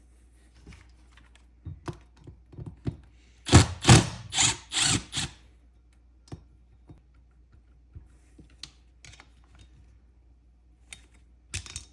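Hand tools working on metal engine parts: scattered light clicks and knocks, with a loud run of about five rattling strokes about three and a half seconds in, and a few more clicks near the end.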